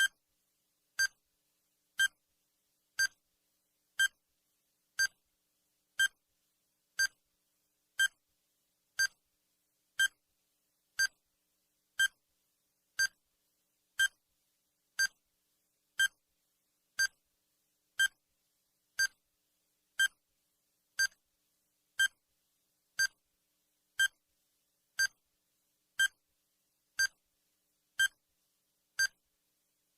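Countdown timer's sound effect: a short electronic beep once a second, marking each second.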